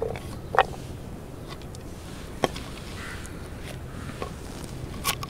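Knife and round wooden cutting board being handled while vegetables are cut: a few sharp knocks and clicks, the loudest about half a second in and about two and a half seconds in, with a double tap near the end.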